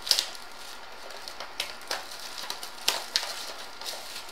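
Crinkling and tearing of the wrapping as a blaster box of trading cards is opened, with a handful of sharp crackles scattered through it.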